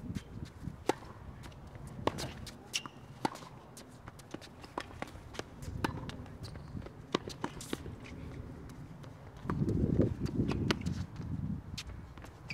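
Tennis rally on a hard court: sharp pops of racket strikes and ball bounces about every second, with shoes scuffing on the court. A burst of low rumble about ten seconds in is the loudest sound.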